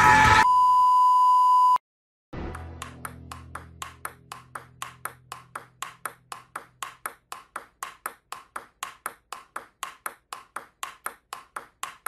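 A steady high beep for about a second and a half, then a short pause, then a fast, even table-tennis rally: the ball clicking back and forth about four times a second, with a faint low hum under the first few seconds.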